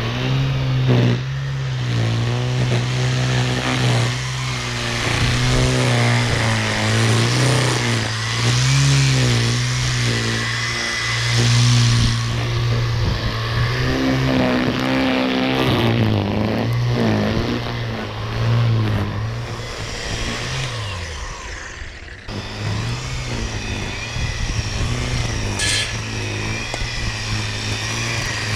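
EGO 56V battery power head running a cutting attachment, its motor hum dipping and rising in pitch as the load changes while it cuts. There is a short break about 22 seconds in.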